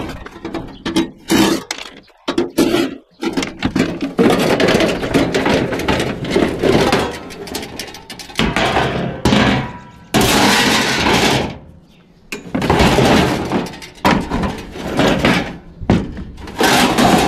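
Aluminum sheet-metal panels of a walk-in cooler evaporator housing being pulled apart and lifted off by hand, with irregular rattling, scraping and knocks.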